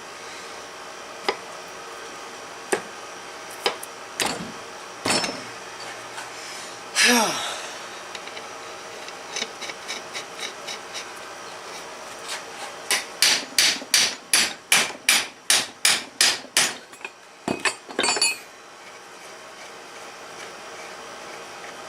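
Hammer striking metal parts of a steering gearbox being taken apart: a few scattered knocks and clinks, then a quick even run of about a dozen blows, roughly three a second, and two more blows after it.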